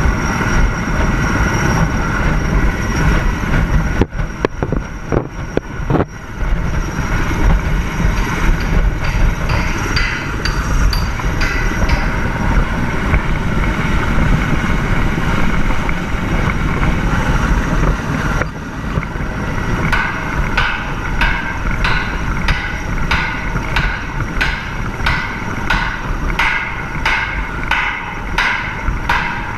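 Helicopter rotor wash and wind buffeting the microphone in a steady heavy rumble. In the second half come regular knocks, about one and a half a second.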